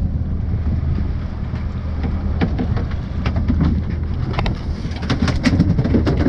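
A boat's engine running steadily with a low hum. Sharp clicks and knocks come in from about two seconds in and grow more frequent near the end.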